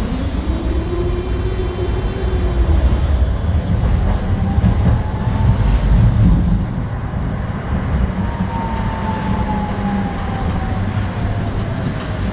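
Interior ride noise of a ČKD Tatra tram running on rails: a steady rumble of wheels and running gear, with clicks over the track, under the whine of the electric traction drive. The whine rises as the tram picks up speed and falls steadily over the last few seconds as it slows.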